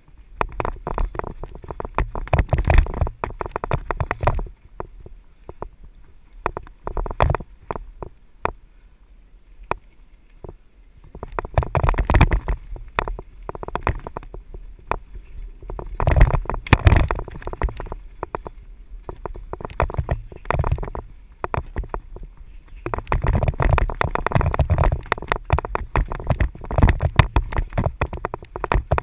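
Mountain bike rattling and clattering as it rolls down a rough dirt trail, in bursts of rapid knocks over the rough stretches with quieter spells between, over a low wind rumble on the microphone.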